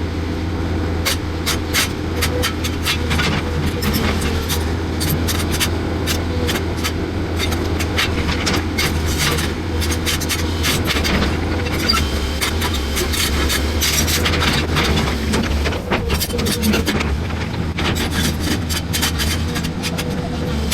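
Large tracked excavator's diesel engine running steadily with a low drone, with many sharp clicks and knocks over it as the machine works to get a thrown track back on.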